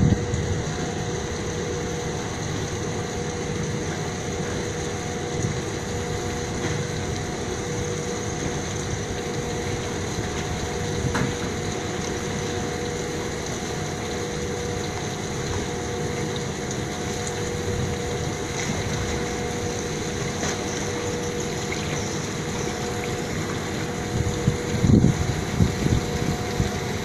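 A steady mechanical hum with two constant tones over a background rumble. Wind buffets the microphone a few times near the end.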